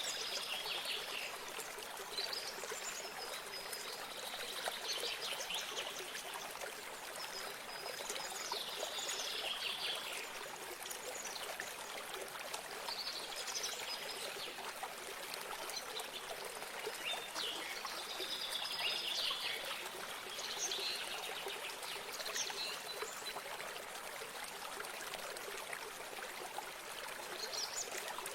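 Water trickling and running steadily, like a small spring or stream, with songbirds singing short chirping phrases every few seconds over it.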